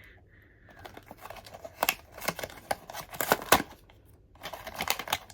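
A blind box being opened by hand: cardboard and plastic packaging handled and torn, with scattered sharp clicks and crinkling that grow busier near the end.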